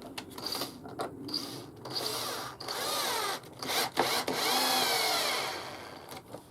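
Power drill driving a screw into wood in several bursts, its motor pitch rising and falling as the trigger is squeezed and eased off.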